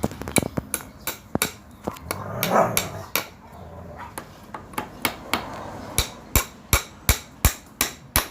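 A hammer driving nails into a wooden plank: light, uneven taps at first, then steady blows about three a second from about six seconds in. A brief louder sound about two and a half seconds in stands out above the taps.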